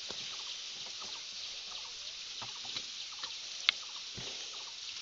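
Outdoor field ambience: a steady high hiss with scattered short chirps, and one sharp click about three and a half seconds in.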